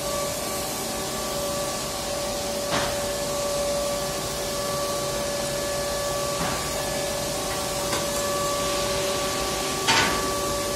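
Steady drone of power-plant machinery with a constant two-note hum, broken by a few brief knocks, the clearest near the end.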